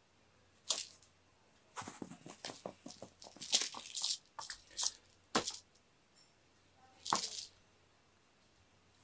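Scratchy rustling and tapping of a cat teaser's ribbon being flicked and dragged across foam floor mats as a cat plays with it. It comes in short bursts, thickest in the middle.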